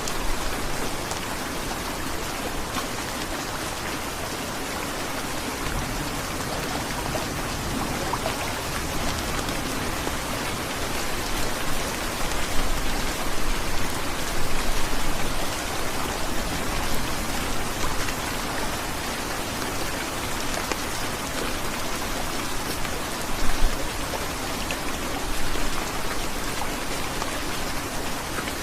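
Heavy rain falling steadily, a dense even hiss of drops. It swells louder for a few seconds about halfway through, with another brief surge later on.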